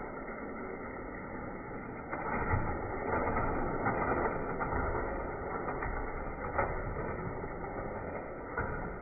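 Die-cast toy cars rolling down a toy track, a steady rolling rumble broken by a few sharp clicks as the cars knock against the track or each other.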